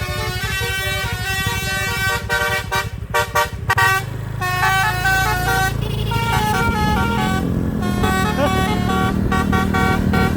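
A bus's basuri telolet horn, a multi-note air horn, playing a stepping tune, with a run of short chopped blasts about two to four seconds in. The bus's engine runs underneath from about halfway and rises in pitch for a couple of seconds.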